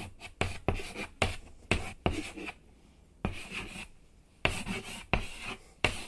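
Quick, scratchy strokes of a pen writing by hand, one every third to half second. They thin out to a single soft stroke for about two seconds in the middle, then pick up again.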